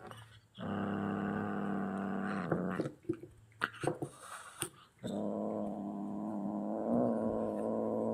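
An angry kitten growling: two long, steady growls, the second starting about five seconds in, with a few short clicks between them.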